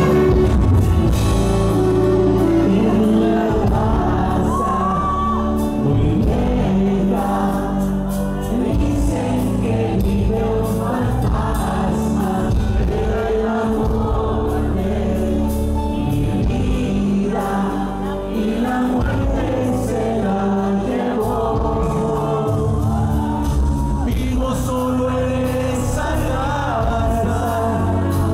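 Live Mexican grupera band playing with a male lead singer over electric guitar, keyboards and drums, loud and steady.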